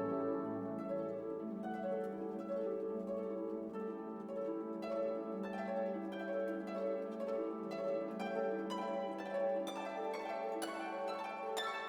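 Instrumental background music: quick plucked string notes over held lower notes.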